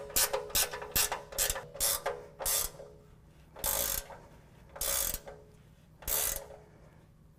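Hand ratchet wrench clicking as it tightens a bumper mounting bolt: quick short strokes at about four or five clicks a second, then three slower, longer strokes about a second apart.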